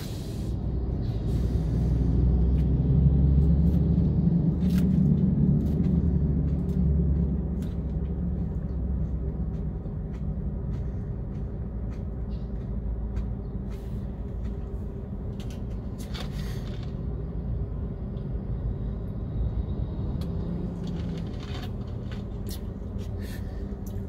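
Low, steady rumble of an idling diesel truck engine, louder for about the first seven seconds, with a few faint light clicks.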